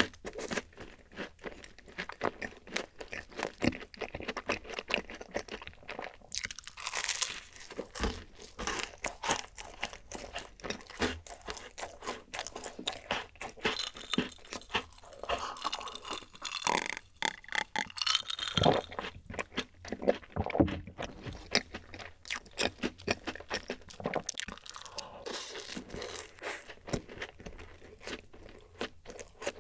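Close-miked chewing and crunching of dacquoise, crisp almond-meringue sandwich cookies, with many quick mouth clicks throughout. About halfway through come sips and swallows of milk from a glass.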